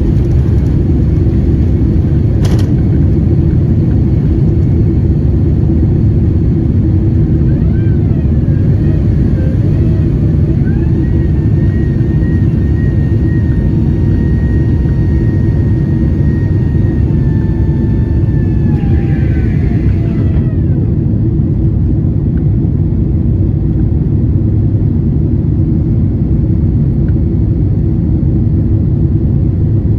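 Airliner jet engines and airframe heard from inside the cabin during takeoff, a loud, steady rumble. A whine rises about eight seconds in, holds, then falls away around twenty seconds in, when the upper hiss also drops; a single click comes about two and a half seconds in.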